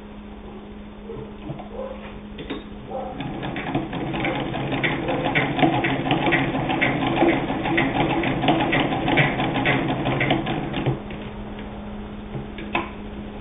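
Singer 66 Red Eye sewing machine, turned by its hand crank, stitching through canvas. A rhythmic mechanical clatter starts about three seconds in, grows louder, and stops a couple of seconds before the end, followed by a single click.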